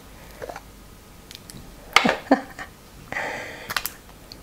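Plastic cosmetics jar (Tony Moly Panda's Dream cleanser) being opened by hand: a few light clicks, then two sharp snaps of the lid about two seconds in. Near the end comes a short rasping rustle as the inner cover is pulled off.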